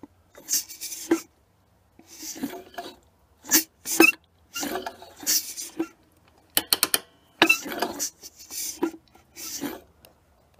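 Irregular clatter and rubbing of small metal carburetor parts being handled and fitted during reassembly of a Mikuni carburetor, with a quick run of sharp clicks about two-thirds of the way through.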